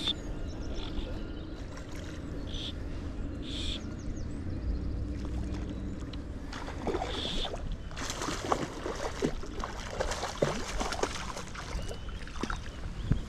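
Wind rumbling on the microphone. From about halfway, water splashing and sloshing as a hooked rainbow trout is brought in at the surface.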